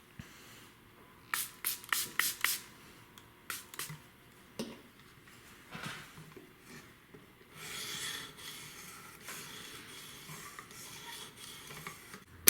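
A Buck 103 skinner knife's steel blade scraping across a knife sharpener's abrasive. First comes a quick run of five or six short strokes, then a few single strokes, and after about seven seconds a longer stretch of steady rubbing.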